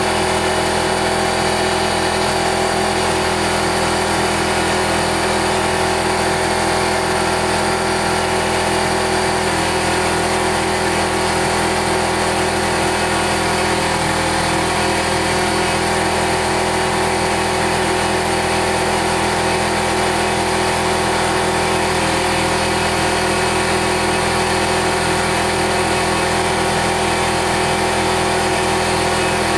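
CNC 3020 router's 800 W spindle running at about 20,000 rpm while a four-flute end mill faces a 1-inch round of 6061 aluminum: a steady whine of several tones over the hiss of the cut. The tone shifts slightly about ten seconds in and again past twenty seconds.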